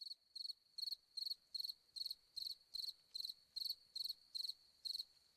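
Cricket chirping: a short, high chirp repeated evenly about two and a half times a second.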